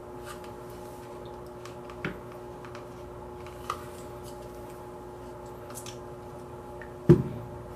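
Light taps and clicks from objects handled on a towel-covered table, over a steady hum. About seven seconds in comes one much louder knock, as of something set down on the table.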